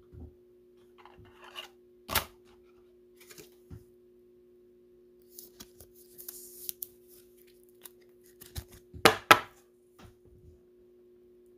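Clear plastic card sleeve and hard toploader being handled as a trading card is slid in: scattered sharp plastic clicks with a soft rustle, and a loud double click near the end, over a faint steady hum.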